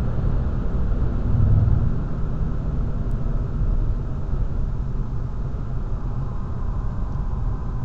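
BMW M240i at speed, heard from inside the cabin: a steady low rumble of road and tyre noise with no clear engine note.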